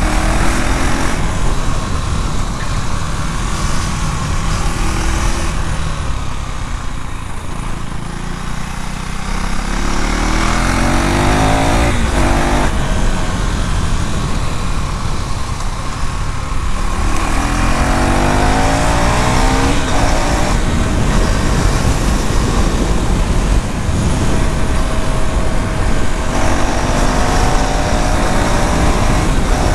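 2024 KTM Duke 390's single-cylinder engine and exhaust under way, accelerating four times with the pitch rising as it revs up through the gears, and easing off in between.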